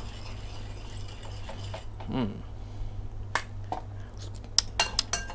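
A metal spoon lightly clicks against a ceramic bowl of mango dressing as a spoonful is tasted, with a few light clicks near the end. A short low hum from the taster comes about two seconds in, all over a steady low background hum.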